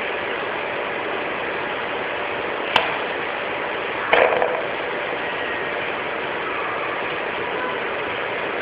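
Steady mechanical noise of running machinery, with a sharp click near the three-second mark and a brief louder sound, falling in pitch, a little after four seconds.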